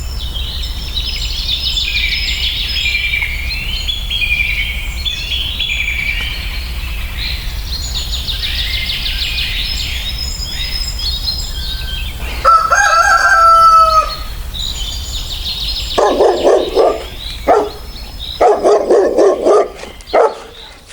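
Songbirds chirping and trilling, then a rooster crows once, the loudest sound, about twelve seconds in. Near the end comes a run of short, lower animal calls.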